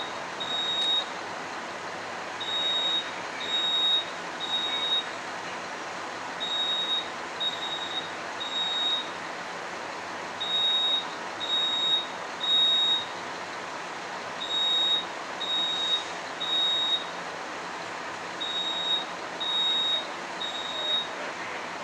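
Building fire alarm sounding in the temporal-three evacuation pattern. It plays three high-pitched half-second beeps, then a pause, and the group repeats about every four seconds over a steady rushing background noise. The alarm was set off by someone pulling a manual pull station.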